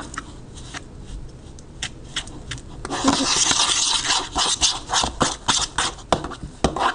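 Metal fork stirring thick cake batter in a plastic mixing bowl: scattered clicks of the fork against the bowl, turning into quick, continuous scraping from about three seconds in.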